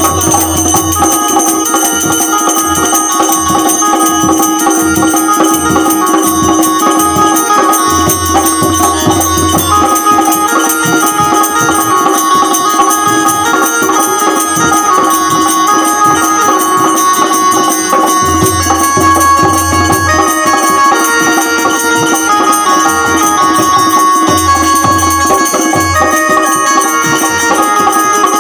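Instrumental interlude of Indian folk devotional music: hand drums and jingling percussion keep a steady fast rhythm under a melody line and a held drone note.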